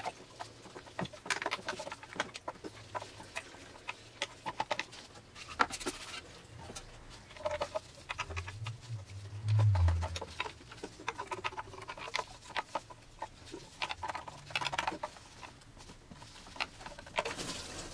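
Metal coolant pipe being wiggled and tugged in its O-ring-sealed socket on the oil cooler: irregular small clicks, taps and creaks as it works loose, with a duller low knock about nine seconds in.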